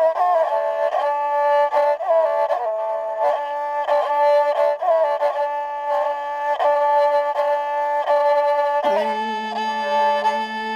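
Saranda (sarinda), a bowed folk fiddle, playing a Kaipeng tune as a melody that moves in steps between held notes. About nine seconds in, a lower second part joins beneath it.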